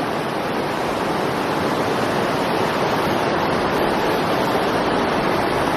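Fast river water rushing over rocks, a steady loud wash that swells slightly.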